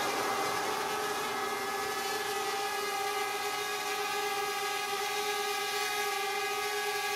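Quadcopter drone hovering: its propellers make a steady whine with a few level tones, the pitch holding constant.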